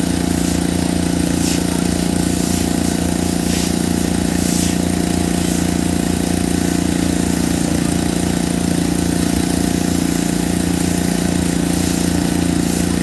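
Pressure washer running steadily: a constant motor drone with the hiss of its spray on wet concrete.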